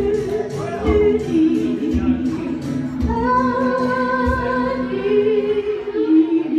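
Singing with no words heard: long held notes with vibrato, apparently two voices in harmony, stepping between pitches, over light acoustic guitar strums.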